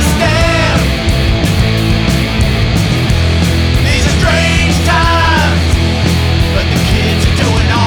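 Loud rock song played by a full band, with guitars and steady drum hits. Bending high notes come in near the start and again around four to five seconds in.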